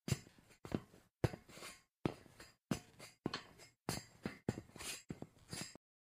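Sneakers stepping on a metal grate: a run of single footsteps, about two a second, each a sharp hit followed by a short scuff.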